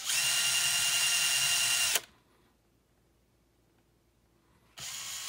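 Brushless cordless drill running steadily at high speed, drilling a small screw hole into a guitar's wooden headstock, then stopping abruptly after about two seconds.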